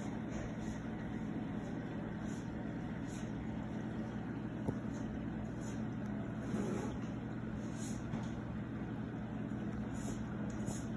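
Steady low hum of reef-aquarium circulation pumps and a powerhead running, with one sharp click a little under halfway through.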